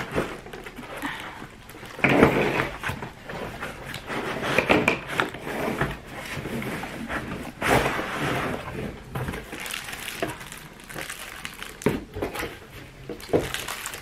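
Unpacking noises: cardboard box flaps and a molded pulp packing tray being handled and slid out of the box, with plastic wrap crinkling, in irregular rustles and a few short knocks.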